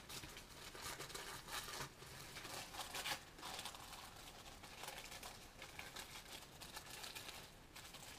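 Wrapping on a gift being crinkled and torn open by hand, a faint string of small crackles and rustles.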